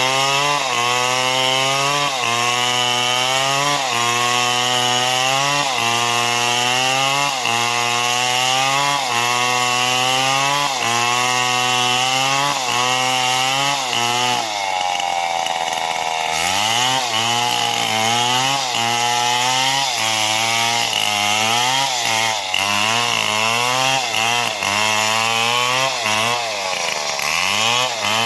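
Stihl MS 070 large two-stroke chainsaw running hard while cutting neem wood, its engine pitch rising and falling about once a second as the bar works through the cut. Midway the engine drags down in pitch for about two seconds under load and recovers, and dips again briefly near the end.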